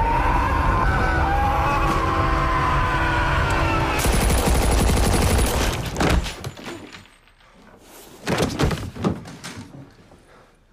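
A man screaming in agony over tense film score, then about four seconds in a sudden burst of rapid gunfire lasting about two seconds, followed by two more loud shots near the end.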